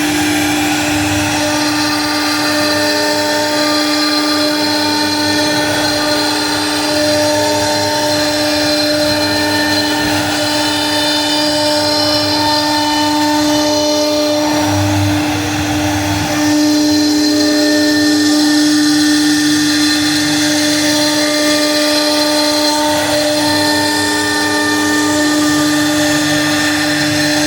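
CNC router spindle running with a steady high whine while the bit cuts wood; the cutting noise varies from moment to moment.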